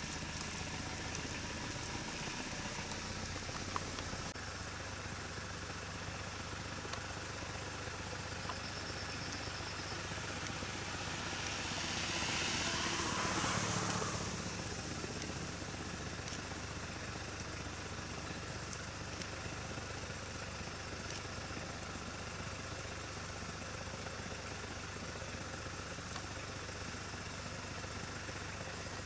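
Vehicle engine idling steadily, with a low hum. About twelve seconds in, a rush of noise swells and fades over a few seconds.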